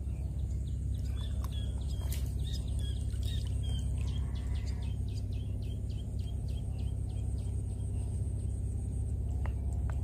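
A steady low rumble with small birds chirping over it. In the middle comes a run of rapid, evenly spaced ticking notes, about five a second.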